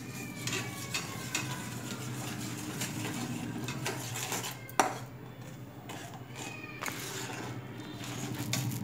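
Metal spatula scraping and clinking against a metal kadai while stirring thick mango pulp as it cooks down, with short squeaky scrapes and a sharp knock about five seconds in, over a low steady hum.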